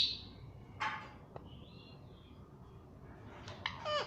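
Pet parrot making a few short, separate calls with soft chirps between them, then a call near the end that falls in pitch.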